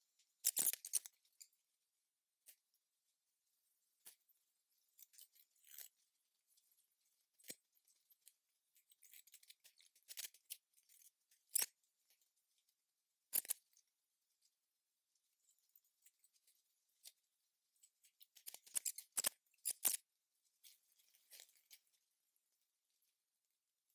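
Scattered short scrapes and clicks of cooking tools on the steel top of a Blackstone flat-top griddle, some in quick clusters, with quiet gaps between.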